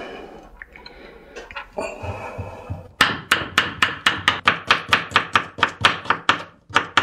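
Kitchen knife chopping a cucumber on a wooden cutting board. Quick, even strokes, about four or five a second, begin about three seconds in and pause briefly near the end.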